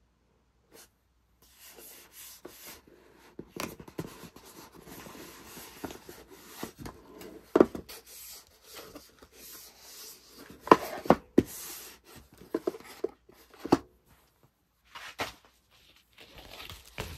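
Hands handling a kraft cardboard mailer box: fingers rub and slide over the cardboard and smooth a paper sticker down across the lid's edge. Several sharp taps and knocks from the box being handled stand out from the rubbing.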